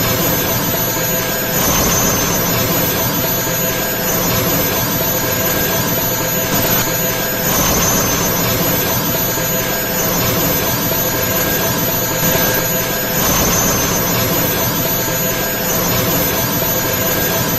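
Rasenshuriken anime sound effect: a loud, sustained whirring roar with a steady high-pitched whine on top, swelling slightly now and then.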